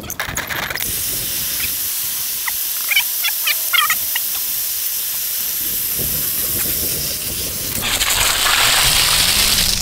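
Water hissing from a garden hose under pressure, starting about a second in and growing louder near the end. A few short high chirps sound in the middle.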